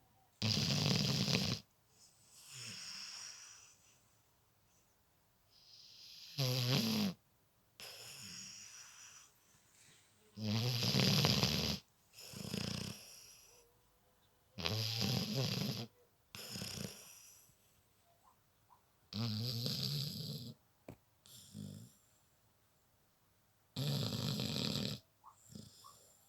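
Snoring in sleep: six loud snores, one about every four to five seconds, with softer breaths in between.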